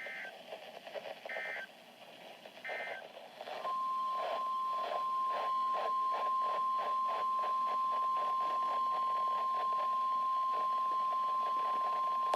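NOAA Weather Radio alert signals: three short warbling SAME data bursts, the end-of-message code closing the previous warning. About four seconds in, the steady 1050 Hz weather-radio warning alarm tone starts and holds for about eight seconds, with a faint even pulsing beneath it.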